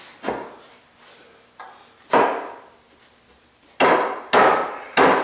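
Sharp knocks on wood as 2x4 workbench frame pieces are knocked into place during a dry fit: about six strikes, the loudest four spread across the second half, the last three coming quickly one after another.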